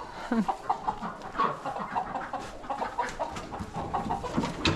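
Chickens clucking in short, irregular calls, a flock stirred on the roost at night as new birds are carried in, with a sudden sharp clatter near the end.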